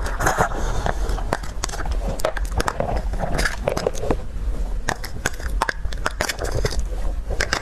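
Close-miked eating: a person biting and chewing food, with many irregular crackly clicks and smacks.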